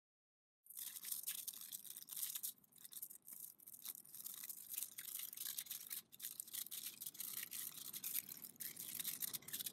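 Aluminium foil crinkling and crackling as it is folded and pressed by hand into a small boat, with many small ticks. It starts about a second in.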